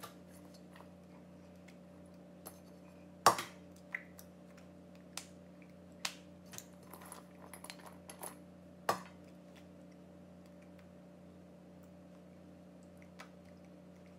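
A handful of short knocks and clinks from a stainless steel mixing bowl and the julienned carrots in it being handled, the loudest about three seconds in and the rest scattered up to about nine seconds in, over a steady low hum.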